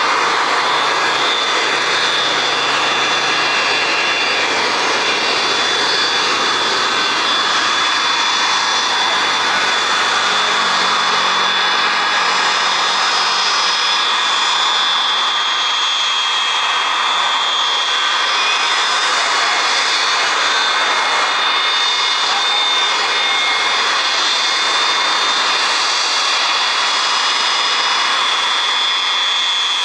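Aircraft engines running loudly and steadily, a high whine over a broad rushing noise; the deeper part of the sound thins out about halfway through.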